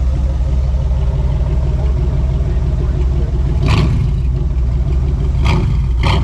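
Pontiac Fiero's swapped-in Cadillac 4.9 V8 idling steadily with a nice rumble just after starting. A few short sharp noises sound over it a little past halfway and near the end.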